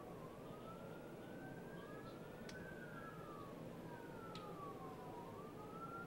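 Emergency vehicle sirens wailing in slow rising and falling sweeps. Two sirens overlap, faint over steady background noise.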